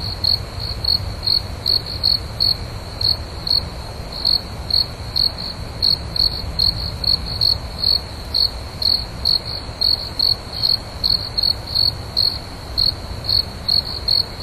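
Cricket chirping: short, high chirps about three a second, slightly uneven in spacing, over a low steady background rumble.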